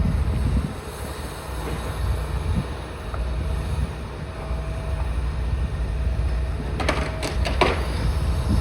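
Demolition excavator's engine running with a steady low rumble, and a short burst of clattering and crunching of debris about seven seconds in.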